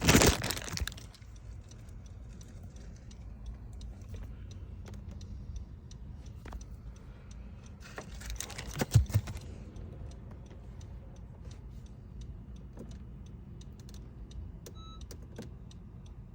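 Keys and tools being handled and jangled, loudest in the first second and again about nine seconds in, with scattered small clicks between. A short electronic beep sounds near the end.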